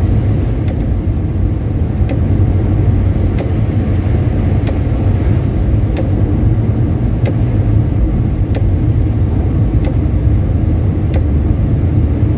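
Inside the cabin of a Rover P4 100 driving on a wet road: its 2.6-litre straight-six runs steadily under a low rumble of engine and road noise, with a faint tick about every 1.3 seconds.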